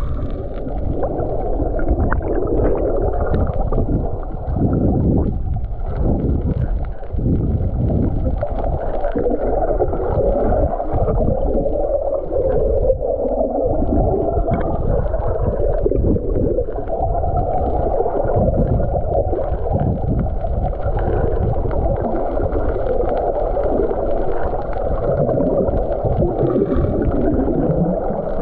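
Muffled underwater noise picked up by a submerged camera: a steady low rushing and gurgling of water and air bubbles churned up by snorkelers kicking nearby.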